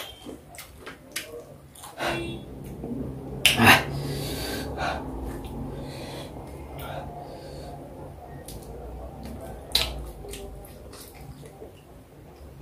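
Close-miked eating sounds: mouth clicks and smacks from chewing, and a blackened banana's skin being bitten and peeled. There is a loud crackle about three and a half seconds in and another near ten seconds.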